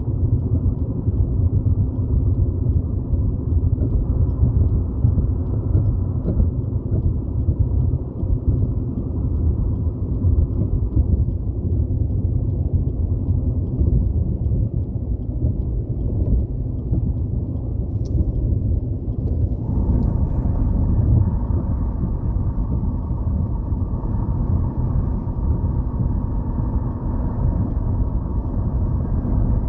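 Steady low road rumble inside a moving car's cabin, from the tyres on a rough road and from wind. About eighteen seconds in there is a short click, and soon after a faint steady hum joins the rumble.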